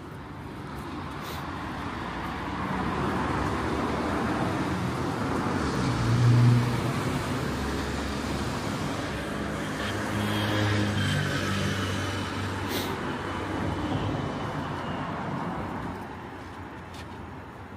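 Motor traffic passing on a city street: vehicle engines and tyres swell up, are loudest about six seconds in, keep going for several seconds with a low engine hum, then fade away near the end.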